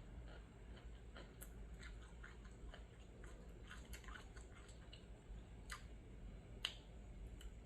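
Faint chewing: soft, irregular mouth clicks and smacks, with one sharper click near the end.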